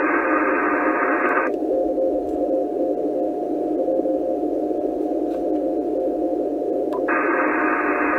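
ICOM IC-746 HF transceiver receiving in CW mode: band hiss from its speaker with a weak Morse code signal keyed on and off as a faint tone. About a second and a half in, the narrow CW filter is switched in and the upper part of the hiss cuts off suddenly, leaving a duller, narrower rush. Near seven seconds the wide filter returns and the hiss opens up again.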